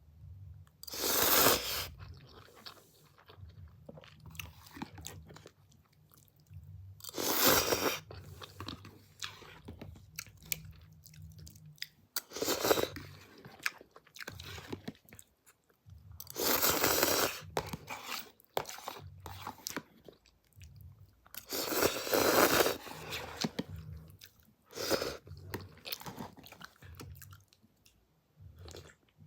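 A person biting into crunchy food about six times, every four to six seconds, each loud crunch followed by quieter, irregular chewing.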